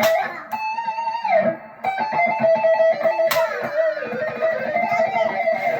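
Electric guitar, a Squier Classic Vibe 50s Stratocaster partscaster with Wilkinson single-coil pickups, played lead: held notes with vibrato, one sliding down in pitch about a second and a half in, then a long wavering note over quick picked notes. Its single-coil high end is what the owner finds brittle and thin.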